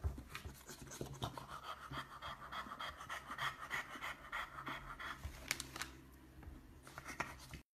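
French bulldog panting fast and steadily, quick even breaths in and out through its open mouth.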